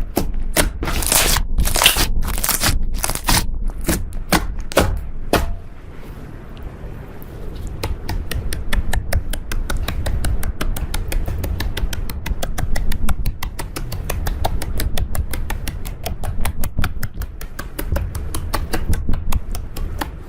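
Slime being squeezed and kneaded by hand. For the first few seconds there are a handful of louder squishes and snaps, then from about eight seconds a fast, dense run of small crackling clicks as trapped air bubbles pop.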